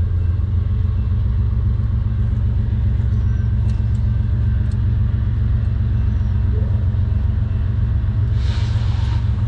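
A steady, low engine-like rumble from a running motor or machine, with a brief hiss near the end.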